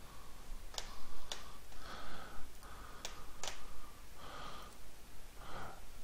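Four sharp computer-mouse clicks, with faint breathing near the microphone between them.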